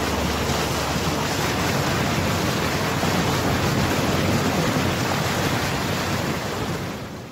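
Steady rushing of water and wind noise on the microphone above choppy water, as heard from a boat; it fades out near the end.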